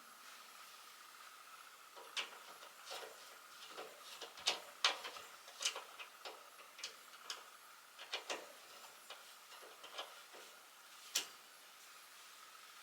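Irregular light clicks and taps of small hard objects being handled and set down, with no steady rhythm, over a faint steady high-pitched hum.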